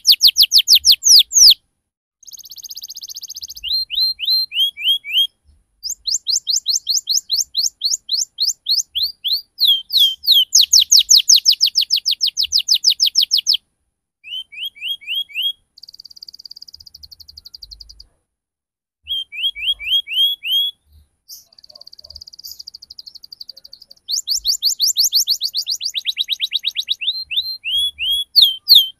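Domestic canary singing its rolling song: fast runs of repeated down-sweeping whistled notes, about eight a second, broken by short pauses and a few buzzy trills.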